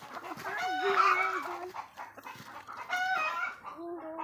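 Free-range chickens clucking and calling in two bouts, one about half a second in and another around three seconds in.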